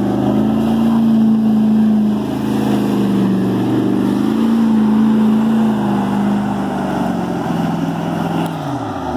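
Jeep Grand Cherokee's engine revving hard and held high as its wheels spin in deep mud, the pitch wavering up and down. Near the end the revs drop sharply and then climb again.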